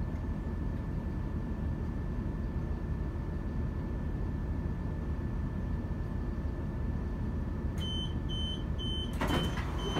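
Steady low rumble of a Class 170 Turbostar's inline-six turbo diesel heard inside the passenger cabin. About eight seconds in, a high door-warning beep starts repeating a few times a second. A second later comes a sudden burst of noise.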